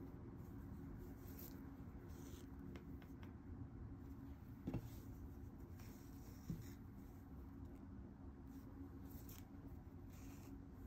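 Yarn being drawn through needlepoint canvas: several faint, soft rasps as the thread is pulled through the mesh, with two light taps about five and six and a half seconds in, over a low steady hum.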